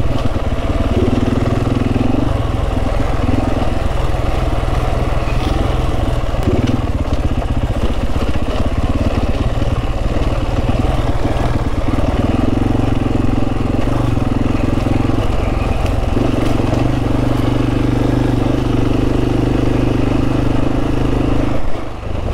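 Motorcycle engine running as the bike is ridden along, with wind and road noise; the engine note comes and goes, holding steadier through the second half, and the sound dips briefly just before the end.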